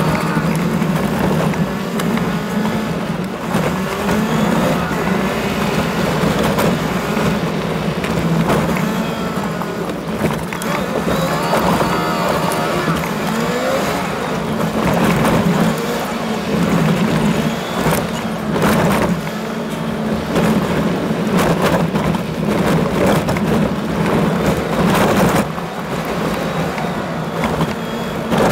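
Toyota Land Cruiser driving over a rough gravel track: a steady engine drone with wavering rattles, and several sharp knocks from bumps in the second half.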